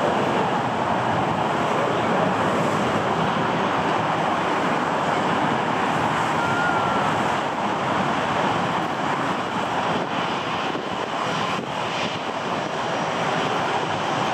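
Airbus A320-216's CFM56-5B turbofan engines running at taxi power: a steady jet engine noise.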